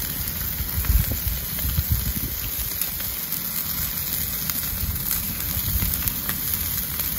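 Beef patties sizzling on a charcoal grill grate: a steady hiss with fat crackling over the coals, and a few low bumps in the first couple of seconds.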